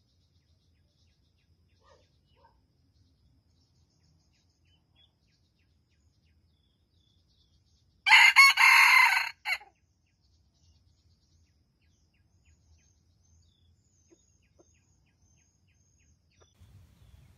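Red junglefowl rooster crowing once, a loud, short crow of about a second and a half, about eight seconds in.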